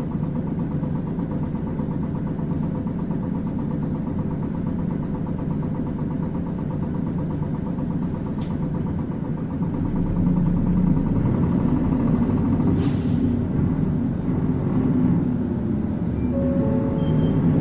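Mitsubishi PKG-MP35UP city bus's diesel engine heard from inside the cabin, idling steadily and then getting louder from about ten seconds in as the bus moves off. There is a short hiss of air about thirteen seconds in.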